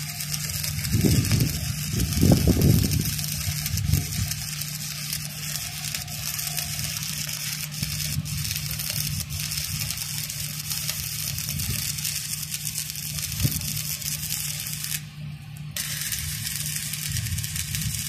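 Stick welding on a steel anchor chain link: the electrode arc crackling and hissing steadily, cutting out for a moment about fifteen seconds in and then striking again. A steady low hum runs underneath, and a few low rumbling bursts come in the first four seconds.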